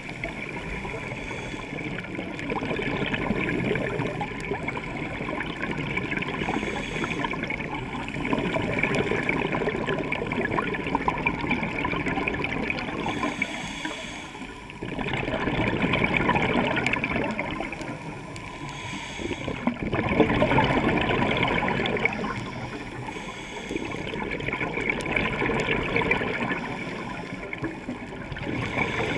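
Scuba regulator breathing heard underwater: bubbles from the diver's exhalations gurgle and rush, swelling and easing every few seconds.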